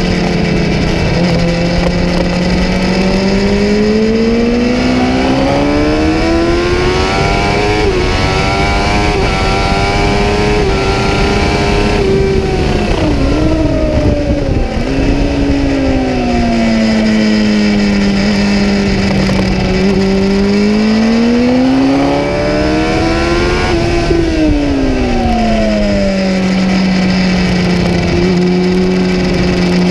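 Kawasaki ZX-10R's inline-four engine, heard from on board while ridden hard on track. The engine note climbs steadily for about twelve seconds, then drops and wavers as the bike slows, rises again to a peak about two-thirds of the way in, and falls away once more before climbing gently near the end.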